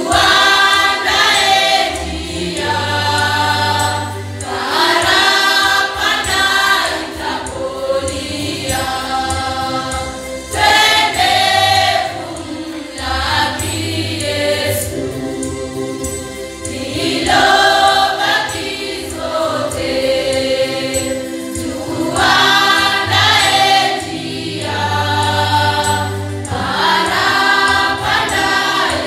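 A youth choir singing a church hymn together, in sung phrases of a few seconds each that swell and ease off in turn.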